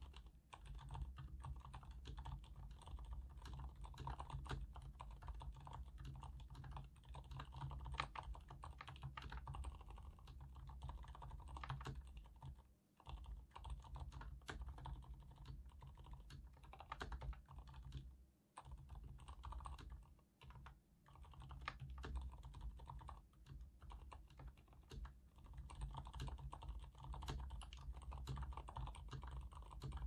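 Steady, quick typing on an mStone Groove F mechanical keyboard with fully lubricated silent red switches (35 g): a dense run of quiet keystrokes, with brief pauses about 13 and 18 seconds in.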